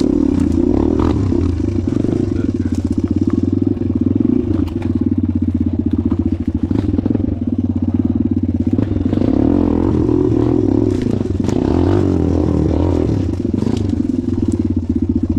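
Suzuki DR-Z dirt bike's single-cylinder four-stroke engine running at low, steady revs while riding over rough ground, with scattered knocks and rattles.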